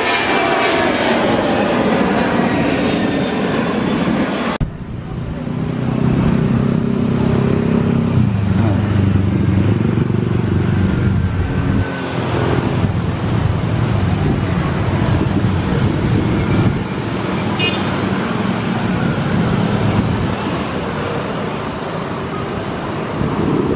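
Boeing 737-800 jet engines at takeoff power as the airliner climbs away, the engine whine falling in pitch. About four and a half seconds in, the sound cuts off sharply, and a steady, loud low rumble follows.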